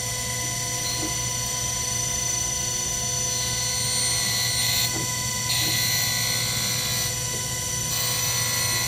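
Harig 612 surface grinder's 3 HP spindle motor and grinding wheel running with a steady hum and high whine. A brighter hiss joins about five seconds in and again near the end.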